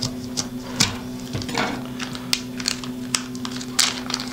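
Anti-static plastic bag snipped open with small cutters and handled: irregular sharp clicks and crinkles, over a steady low hum.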